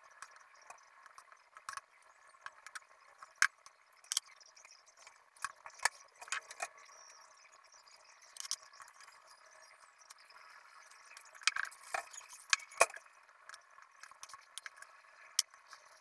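Scattered clicks, taps and clinks as spray cans, a stencil tin and painting tools are handled and set down on a worktable, over a faint steady background hiss. The loudest knocks come about three to four seconds in and again around twelve seconds.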